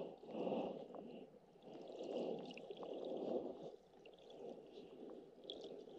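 Underwater ambience picked up by a submerged camera: a low, muffled rumbling that swells and fades every second or so, with faint crackling over it.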